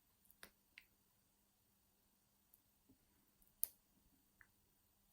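Faint, scattered clicks of a lock pick and tension wrench working the wafers of a vintage Yale wafer padlock, with one sharper click about three and a half seconds in.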